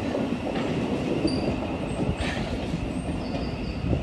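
Thameslink Class 700 electric multiple unit running past on curved track: a steady rumble of wheels on rail with rhythmic clicks, and a few short high-pitched wheel squeals.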